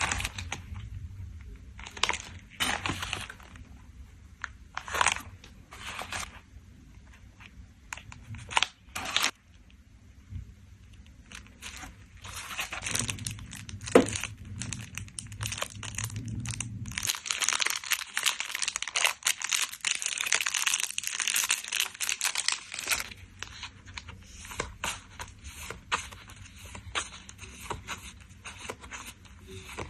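Plastic sleeves and packaging crinkling and rustling while small collectible cards are packed, with scattered taps and short tearing sounds. The crinkling grows denser for several seconds in the middle.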